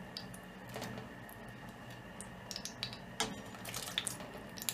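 Diced potatoes sliding off a plate into a pot of boiling meat broth: a run of small splashes and plops, coming thicker in the second half.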